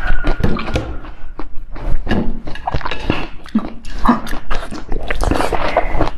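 Close-miked biting and chewing of a clear hand-shaped jelly treat filled with pomegranate seeds: a dense run of sharp crackly clicks and wet mouth sounds.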